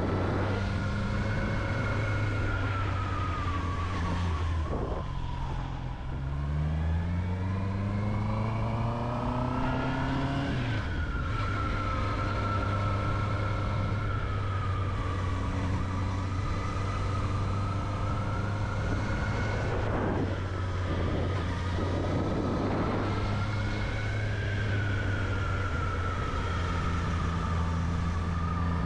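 Honda CB650R's inline-four engine under way, with wind noise. Its pitch sags about five seconds in, climbs steadily for about four seconds as it accelerates, drops suddenly near eleven seconds at an upshift, then holds fairly steady with gentle rises and falls.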